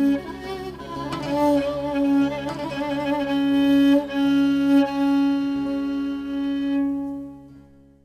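Instrumental passage of a Turkish folk song: a bowed-string melody with vibrato over a steady drone. It fades out near the end.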